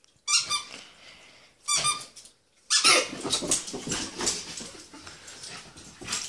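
Miniature schnauzer giving two short, sharp, high-pitched barks about a second and a half apart. From about three seconds in, a continuous stretch of busy scuffling noise follows.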